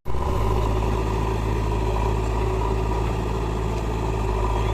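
Diesel engine of a backhoe loader or tractor running steadily at constant speed, after a split-second dropout at the start.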